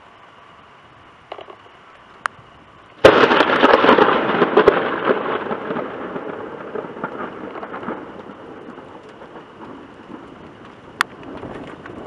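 Close thunderclap: a sudden sharp crack about three seconds in, then a crackling rumble that fades away over the next five seconds or so.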